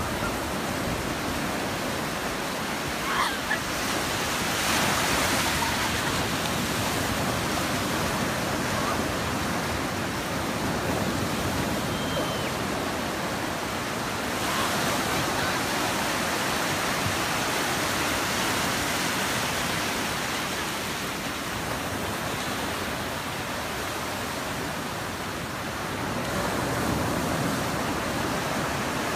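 Ocean surf breaking on a sandy beach: a steady rush of white water that swells three times as waves break and wash in.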